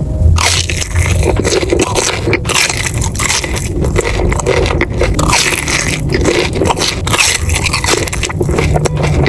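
Close-miked crunchy chewing of a deep-fried sushi roll: a dense, continuous run of crackling crunches.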